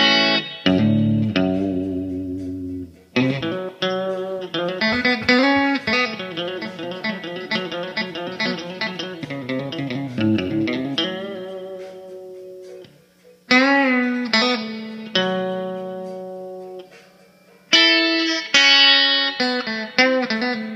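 Telecaster-style electric guitar played through a Fender combo amp: picked chords and single-note runs in phrases, the notes ringing out, with a couple of short pauses between phrases.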